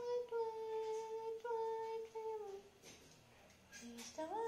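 Domestic cat meowing in long drawn-out calls, two held cries each about a second long that sag in pitch at the end, then a rising call near the end.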